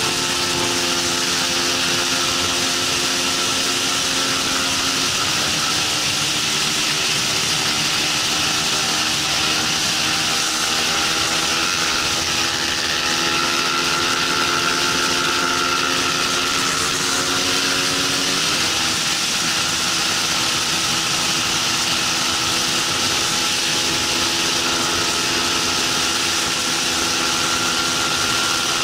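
Bajaj Pulsar 200 NS single-cylinder engine at high revs under racing load, heard from on board: its pitch climbs slowly as the bike gains speed, then drops suddenly about eighteen seconds in at an upshift. Wind and road noise hiss loudly throughout.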